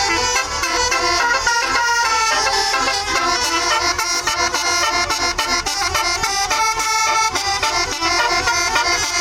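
Tour bus's basuri horn system playing a song, a loud, continuous melody of tooted notes stepping from pitch to pitch.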